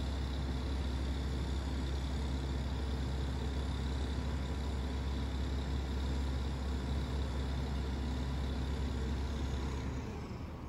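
Diesel engine of a Grove RT60 rough-terrain crane running steadily with a heavy low hum while the crane holds a suspended boat. The sound drops off sharply near the end.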